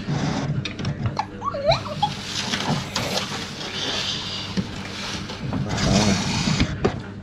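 Dishes, a bowl and a plastic cup knocking and clinking on a table during a meal, over a steady low hum.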